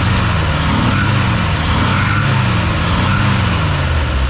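1968 Jeep Gladiator's straight-six engine running, blipped by hand at the Carter YF carburetor so the revs rise and fall several times. It is running with a slight stumble, a sign of the carburetor's fuel-delivery trouble (a float that sticks and floods the carb).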